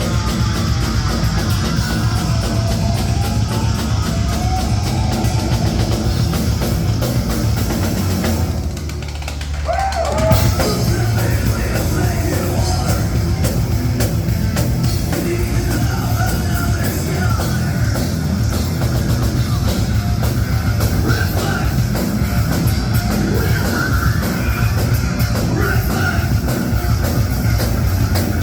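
Live rock band playing loud with distorted electric guitars and a drum kit. About eight seconds in, most of the band drops out for a moment and only the low end rings on, then the full band comes back in with a hit.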